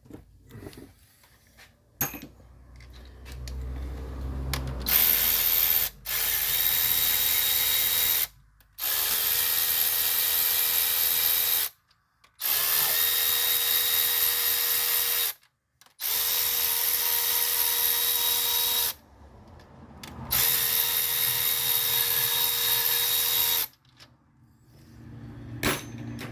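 Cordless power tool spinning out the bolts that hold the rocker arm shaft down, running in five bursts of about three seconds each at a steady pitch.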